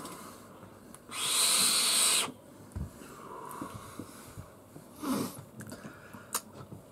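Heavy breathing around a big vape hit: one loud airy rush of breath about a second in, lasting about a second, then softer breaths.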